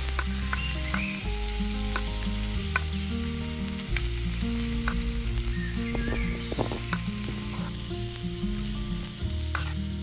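Hot oil sizzling steadily as food fries in a miniature pan, with small sharp clicks of a tiny utensil stirring against the pan, over background music.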